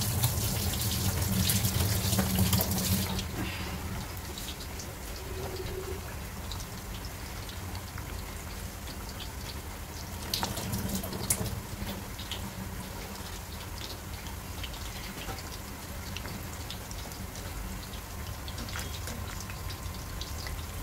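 Marinated chicken pieces deep-frying in hot oil in a kadai: a steady sizzle full of small crackles and pops, louder for the first few seconds and again briefly about ten seconds in.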